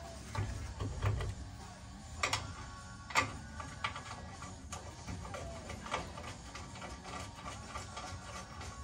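Hand work on a driveshaft carrier bearing and its mounting bracket under a pickup truck: a few dull knocks in the first second or so, then scattered sharp metallic clicks and clanks of the bearing and its bolts being fitted by hand, the loudest about two and three seconds in.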